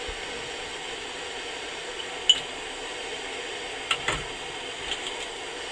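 Small windproof camp stove burner hissing steadily under a pot of water, with a few light metallic clinks.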